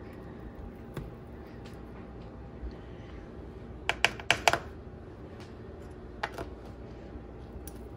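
Metal fork tapping against a plastic cup of flour and the dough tray: a quick run of four sharp clicks about four seconds in, with single clicks near one second and six seconds, over a steady low room hum.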